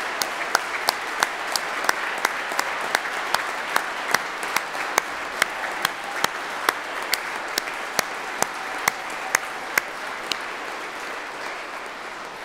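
Audience applauding, with one set of claps close to the microphone standing out at a steady beat of about two to three a second. That beat slows and stops about ten seconds in, and the applause dies away near the end.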